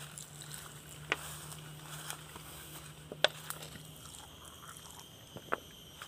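Footsteps through grass and dry fallen leaves, with a few sharp clicks and crunches.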